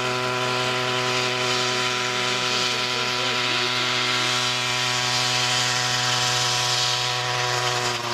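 Homemade radio-controlled coaxial helicopter's 100 cc engine running at a steady hovering speed, its pitch holding level, with the whir of the two spinning rotors.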